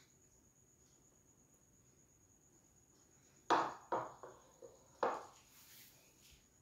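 A metal spoon scraping against a metal cake tin three times, each a short scrape that fades quickly, while whipped cream is spread over a cake layer. The scrapes come after about three seconds of near silence.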